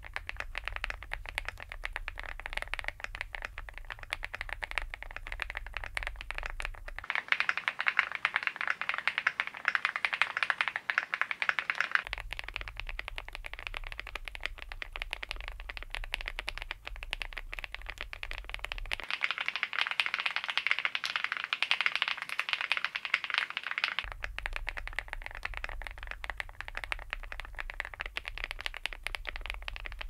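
Continuous fast typing on a fully foamed Cidoo V75 Plus mechanical keyboard with lubed Akko CS Crystal Wine Red linear switches: a dense, steady clatter of keystrokes. For the first twelve seconds or so it wears PC ESA-profile keycaps, then ABS Cherry-profile GMK keycaps. The tone changes every several seconds as the recording switches between microphones.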